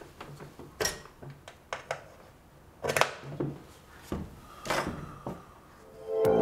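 Scattered light clicks and knocks of hands handling the bare circuit boards and metal power-supply case of a stripped-down mixing desk on a wooden table. Loud music starts right at the end.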